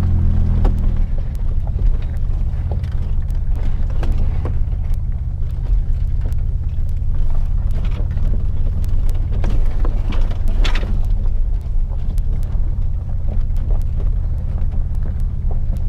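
Toyota 4Runner crawling slowly along a rough dirt trail, heard from inside the cab: a steady low rumble of engine and tyres, with scattered knocks and rattles from the body and suspension over the bumps, and a short scrape about two-thirds of the way through.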